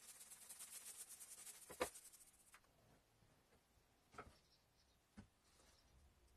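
Small foam roller rolled quickly back and forth over plywood boards, spreading a black coating: a fast, scratchy, rhythmic rasp with a sharp knock about two seconds in. It stops shortly after, and two faint knocks follow.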